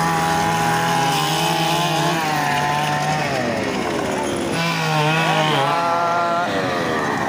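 Chainsaw running, its pitch rising and falling several times as the throttle is opened and eased off while cutting up a fallen tree, with a steady low drone underneath.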